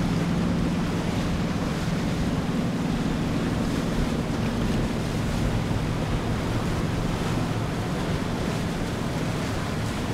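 Baia Italia 70 motor yacht cruising past: a steady low engine drone under the rush of water from its bow wave and wake, with wind noise on the microphone.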